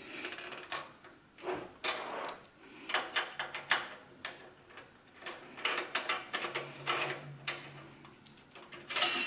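A hand screwdriver backing a screw out of a steel computer-case bracket: irregular small clicks and metallic ticks of the bit and screw against the sheet metal, with a denser run of louder metal clicks near the end.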